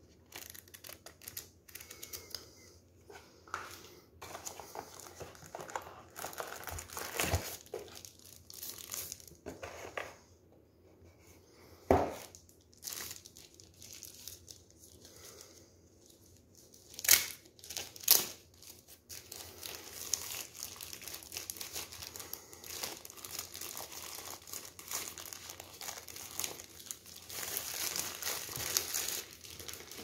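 Plastic packaging crinkling and rustling as it is handled and pulled off a product, in irregular bursts, with three short, sharp, louder noises: one near the middle and two close together a few seconds later.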